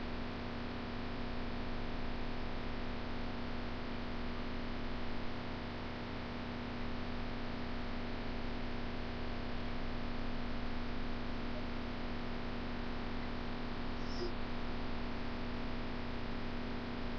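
Steady electrical hum over an even hiss: room tone with no other sound.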